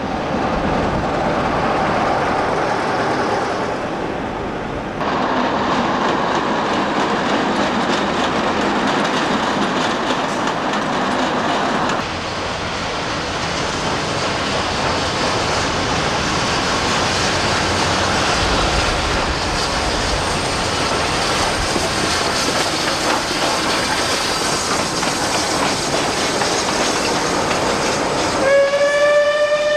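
Passing trains: a steady rumble and rattle of locomotives and coaches on the track, with abrupt changes in sound about 5 and 12 seconds in. Near the end a steam whistle on Bulleid West Country class locomotive No. 34027 sounds one held note, rising slightly at the start.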